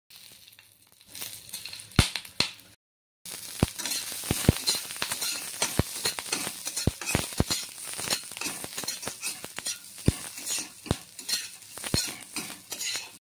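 Dried red chillies and garlic sizzling in hot oil in a kadai, with a metal spatula clinking and scraping against the pan as they are stirred. After a brief break about three seconds in, the sizzling is louder and the clinks come often.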